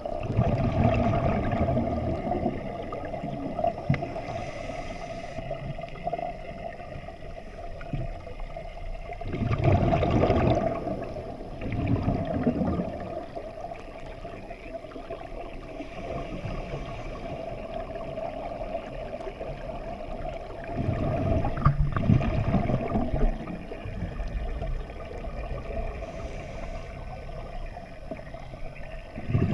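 Underwater scuba breathing: surges of exhaled bubbles from a diver's regulator rush and gurgle every several seconds over a steady underwater hum.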